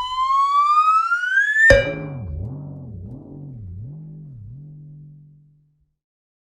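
'Tuitt Twing' cartoon sound effect: a rising slide-whistle glide that cuts off sharply about two seconds in with a twangy 'twing', a low wobbling boing that fades out over the next few seconds.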